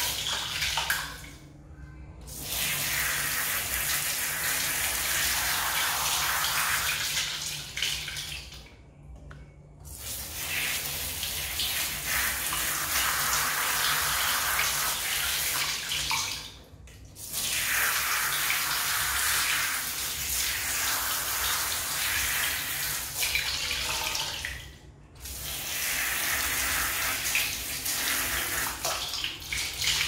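Running water splashing on a foam vacuum-cleaner filter as it is rinsed and squeezed by hand. The flow breaks off briefly four times, about every eight seconds.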